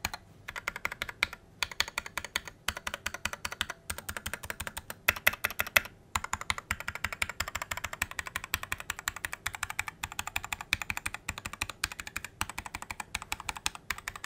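Typing on a Sades Kunai 65% hot-swap mechanical keyboard: fast runs of key clicks, broken by short pauses.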